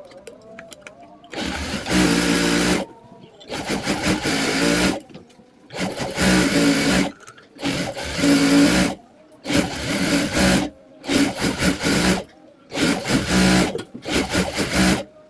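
Sewing machine stitching in short runs: about eight bursts of a second or so each, with brief stops between. These are test stitches after the rotary hook has been replaced and set.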